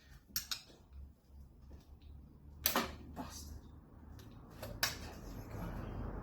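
A few sharp clicks and taps of a tool and hard pump parts, as a stuck mechanical seal is worked loose from a pool pump's housing.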